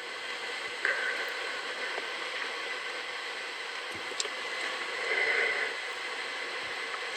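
Steady background noise with a few faint, brief indistinct sounds and no speech.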